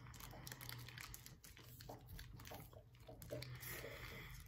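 Faint crinkling of a chocolate bar's wrapper being handled, with quiet chewing.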